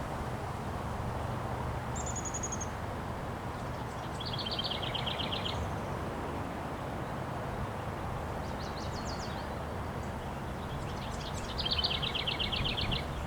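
Steady wind noise, with a bird calling in rapid trills several times over it.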